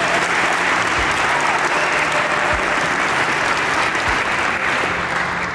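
Audience applauding with steady clapping that dies away near the end.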